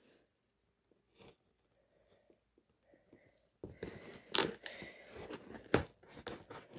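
Album packaging being cut and torn open by hand: a few faint clicks, then from about halfway in a dense crackling rustle broken by several sharp snaps.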